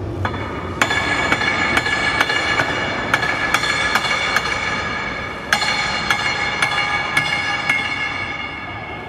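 A hammer strikes metal at the rim of a turntable about twice a second, in two runs with a short break. Each blow leaves a bell-like metallic ring.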